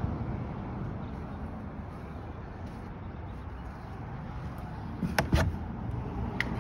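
Steady low outdoor background rumble, with two sharp clicks about five seconds in and another near the end.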